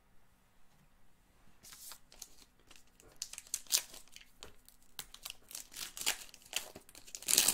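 A baseball card pack wrapper being torn open and crinkled by hand: quick irregular rips and rustles starting about two seconds in, the loudest rip near the end.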